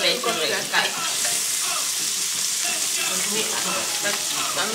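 Food sizzling on an electric tabletop grill plate: a steady frying hiss.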